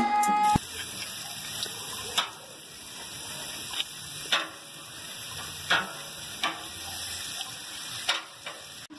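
Meat sizzling on a charcoal grill: a steady hiss, with a few sharp clicks of metal tongs against the grill grate.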